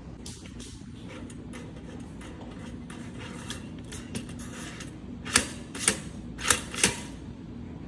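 Light scattered clicks and taps of a black plastic two-slice toaster being handled, then four sharp clicks over about a second and a half near the end. A faint steady low hum runs underneath.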